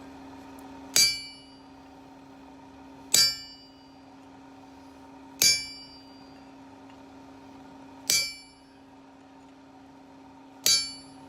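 Hammer striking a blacksmith's chisel held on a metal bar over an anvil, scoring a line down its centre: five ringing metallic clangs, about two and a half seconds apart, with a steady hum underneath.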